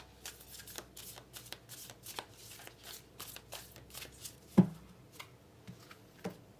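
A deck of tarot cards being shuffled by hand: a run of quick crisp card flicks, with a sharper knock about two-thirds through and a lighter one near the end.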